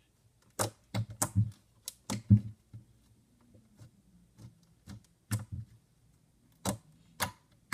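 A string of sharp, irregular clicks and taps, about a dozen, from small things being handled on a tabletop; the loudest comes a little over two seconds in.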